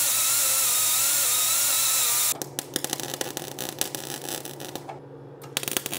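A handheld power tool, most likely an angle grinder, runs steadily with a wavering whine for about two seconds, then stops. Then a MIG welding arc crackles and sizzles over a steady low hum from the welder. The arc breaks off briefly about a second before the end and strikes again.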